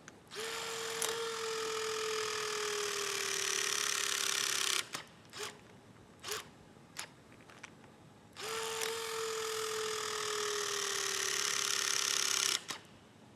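A Milwaukee M18 FORCE LOGIC 12-ton battery-powered hydraulic linear crimper runs two crimp cycles. Each time its motor and pump run for about four seconds with a tone that slowly falls in pitch, then cut off abruptly. A few separate clicks come between the two runs.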